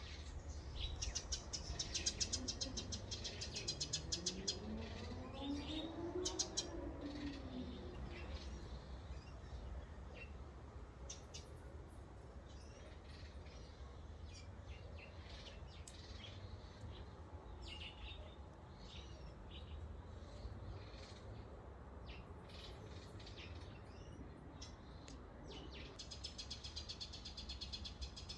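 Birds chirping in quick runs of calls, busiest in the first few seconds and again near the end, over a steady low rumble. About four seconds in, a drawn-out call rises and then falls over two or three seconds.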